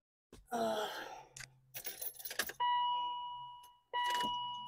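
A few clicks and rattles, then two electronic chimes, each one clear tone that rings and fades over about a second, the second coming about a second and a half after the first.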